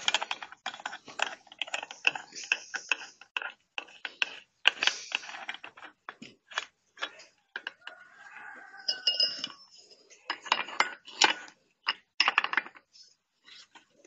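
Irregular metal clinks, knocks and scrapes from hands working the spindle nut and flange of an angle grinder rigged with a chainsaw bar and chain.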